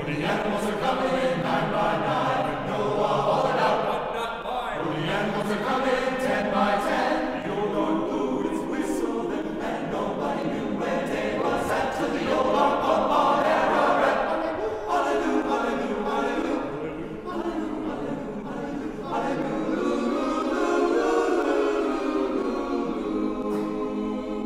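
Men's chorus singing a cappella in harmony, male voices holding and moving through chords.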